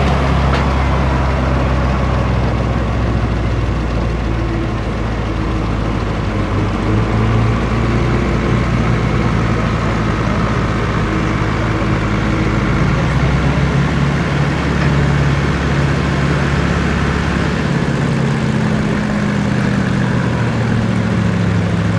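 Square-body pickup truck's engine running under load as it pulls a weight-transfer sled, a steady deep drone whose pitch climbs a little in the last few seconds.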